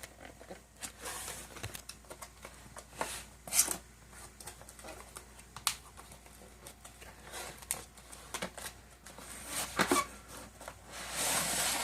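Packaging being opened by hand: rustling and tearing of wrapping, with scattered small clicks and knocks, and a longer rip near the end.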